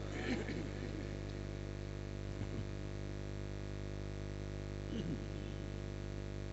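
Steady electrical mains hum from the sound system during a pause in the Quran recitation. A brief throat-clearing about a third of a second in, and another short vocal sound about five seconds in.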